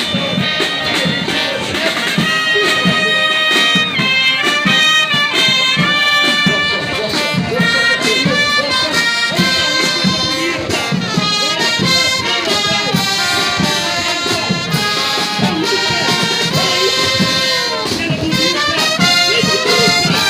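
Military brass band playing a tune, with sustained brass notes carrying the melody.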